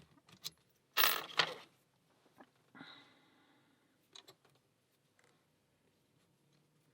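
Lock picks and tension tool clinking against a small brass padlock: a loud cluster of sharp metallic clinks about a second in, then a short ringing clink, then a few light ticks.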